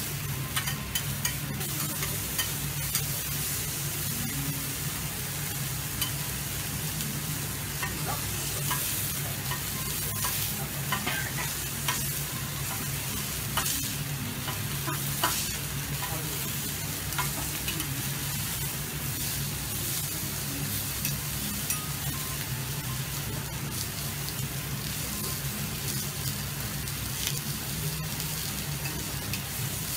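Kobe beef steak sizzling on a hot teppanyaki steel griddle, a steady frying hiss, with scattered sharp clicks and scrapes of the metal spatula and knife on the plate as the meat is turned and cut. A steady low hum runs underneath.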